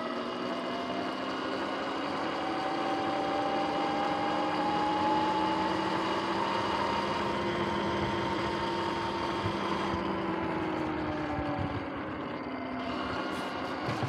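Sur-Ron X electric dirt bike's motor and drivetrain whining while riding. The pitch rises as the bike speeds up over the first half and eases down later as it slows, over tyre and wind noise.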